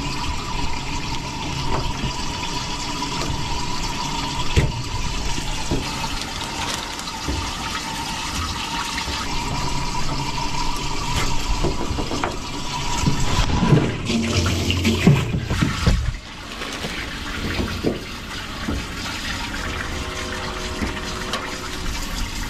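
Running water, steady, with a louder, busier stretch about two-thirds of the way through before it suddenly drops quieter.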